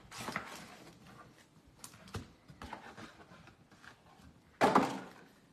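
Trading-card packs and their cardboard box being handled on a table: light rustling and scattered taps, with a louder rustle of the foil packs about four and a half seconds in.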